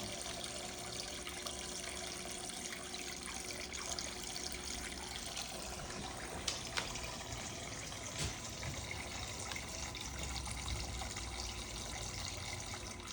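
Water trickling and splashing in a toy play sink as a cockatoo bathes and paddles in it, with a few light taps and clicks.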